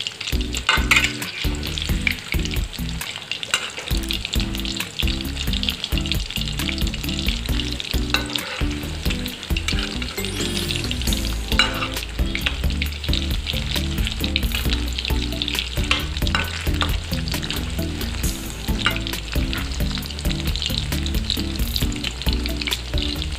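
Chicken pakoras deep-frying in hot oil in an aluminium kadhai, a steady sizzle with many fine crackles, mixed with scraping and stirring from a metal spatula turning the pieces.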